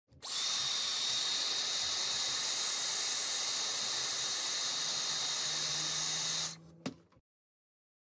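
Hairdryer blowing: a steady rush of air with a high, even motor whine, switched on near the start, running for about six seconds and cut off, with a single click just after.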